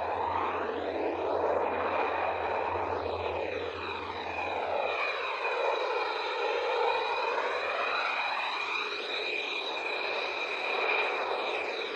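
Turbofan engines of fighter jets taxiing, among them an F-15E Strike Eagle: a steady high-pitched turbine whine over a dense rush of jet noise, with a sweeping, phasing quality as the aircraft move past.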